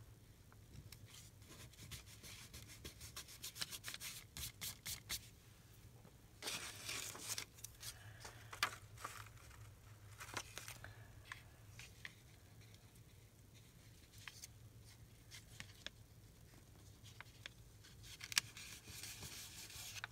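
Scrap paper being handled and torn: faint rustling and clicking, a couple of short tearing rips, and a glue stick rubbed over paper near the end.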